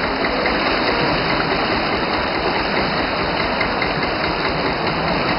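Fast-flowing muddy floodwater from an overflowed stream, rushing steadily past a house's steps and wall.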